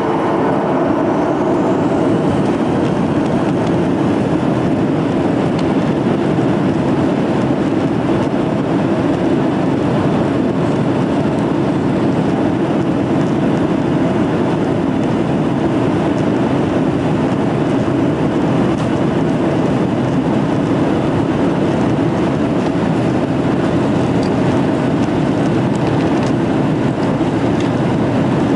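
Boeing 737-800 airliner's engines running with a steady, loud rumble that holds without change.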